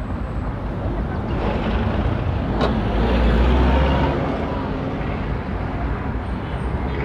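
City street traffic, with a van's engine rumbling past close by and swelling to its loudest about three and a half seconds in. A single sharp click sounds just before the van passes.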